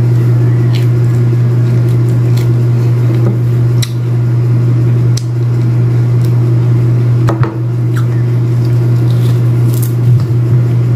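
A steady low hum, with scattered small clicks and squishes from a pomelo segment being peeled and bitten into.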